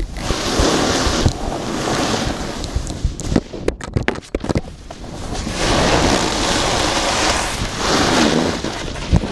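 Snowboard sliding and carving on groomed snow: a rushing hiss that swells with each turn, three surges with a quieter stretch in the middle broken by a few clicks, mixed with wind buffeting the microphone.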